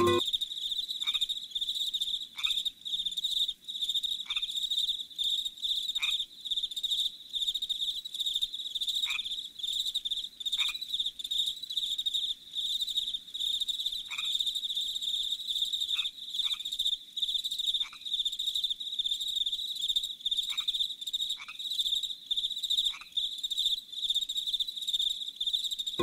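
Steady, high-pitched trilling of a cricket chorus, with about a dozen short whistles sliding downward at irregular intervals.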